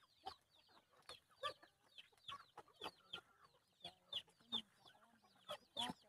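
A flock of black-meat chickens feeding, giving short, faint clucks and calls at a scattered pace of about two a second.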